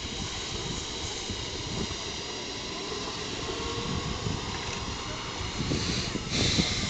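Outdoor wind rumbling on a phone microphone over a steady hiss, with a short louder rush of hiss about six seconds in.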